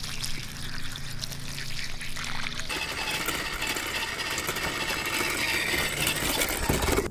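Water pouring and splashing onto a toy monster truck sitting in mud, then from about three seconds in an RC trail truck towing a trailer drives on asphalt, its running noise carrying a steady high whine; the sound cuts off suddenly at the end.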